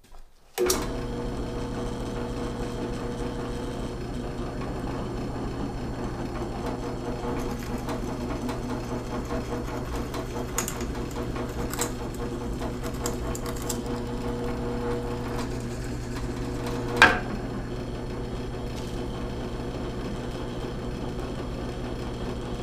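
Porter-Cable PCB660DP floor drill press switched on under a second in, its motor and spindle running with a steady hum while the bit is fed down into a block of pine. A single sharp knock sounds about three-quarters of the way through.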